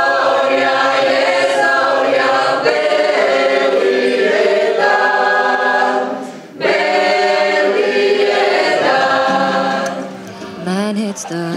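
Mixed folk choir singing a traditional Croatian song a cappella, in held chords of several voices. The singing breaks off briefly about six seconds in, then resumes, and thins out near the end.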